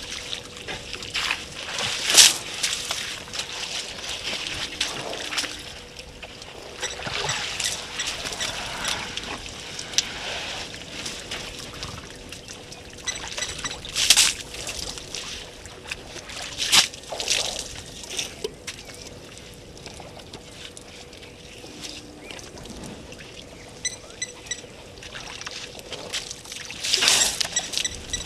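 Water trickling, pouring and sloshing in irregular bursts as African elephants drink and move at the edge of a waterhole, over a faint steady hum.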